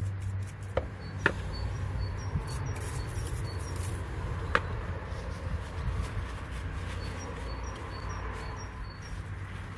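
A few light sharp clicks and taps over a steady low hum, the loudest about four and a half seconds in, with a small bird calling in short high chirps that alternate between two pitches, in two runs.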